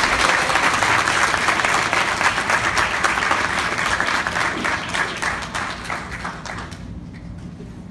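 Audience applauding, a dense mass of claps that fades away about seven seconds in.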